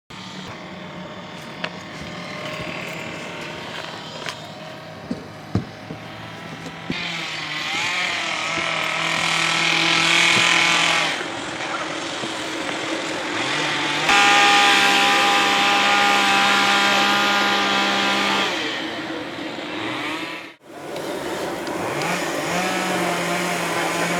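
A machine's motor running, its pitch rising and falling and loudest in the middle stretch, with a few sharp clicks in the first seconds and a sudden break about three-quarters of the way through.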